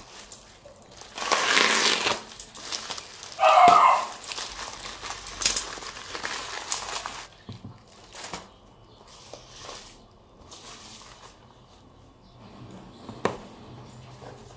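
Plastic bubble wrap crinkling and rustling as a package is unwrapped, with a short louder burst about three and a half seconds in. Then quieter handling of a cardboard box, sliding and set down, with a few light knocks.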